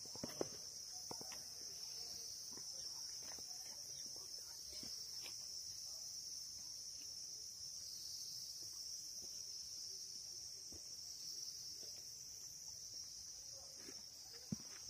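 Insects chirring in one steady, high-pitched drone, with a few faint footsteps on a paved path.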